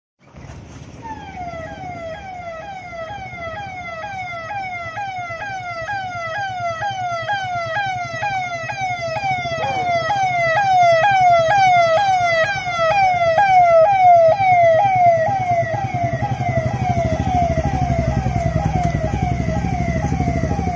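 Police vehicle siren giving a rapid repeating falling wail, about two sweeps a second, from a convoy jeep with roof-mounted siren speakers. Vehicle engine rumble rises underneath as the convoy passes.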